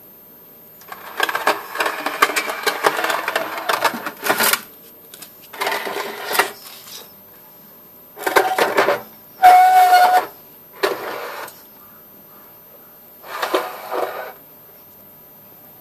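Rusty electric hot plate being dragged and handled over a dusty floor: several separate bursts of scraping and rattling, one with a brief squeal partway through.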